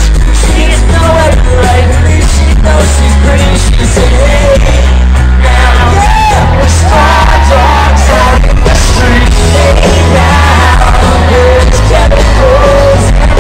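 Live rock band with piano, drums and electric guitar playing loud through a festival PA, with a voice singing the melody and yells from the crowd. The bass is heavy and the sound is very loud.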